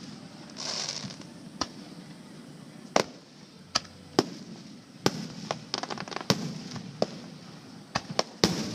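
Aerial firework shells bursting in a display finale: sharp bangs at uneven intervals, crowding into a quick cluster in the second half, over a low rumble of further bursts. A short hiss swells and fades about a second in.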